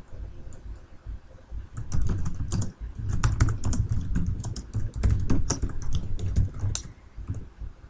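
Typing on a computer keyboard: a quick, uneven run of key clicks that starts about two seconds in and stops about a second before the end, as a line of FORTH code is entered.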